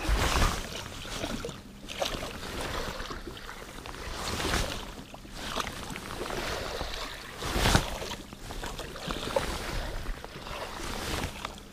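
Wind buffeting the microphone and water lapping around a small fishing boat on choppy water, swelling and dipping, with a louder swell about two-thirds of the way in. A faint steady hum runs underneath.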